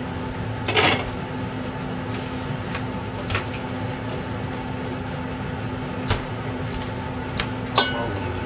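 Steady appliance hum in a kitchen, with a few light knocks spread through and a sharper, briefly ringing metallic clatter near the end.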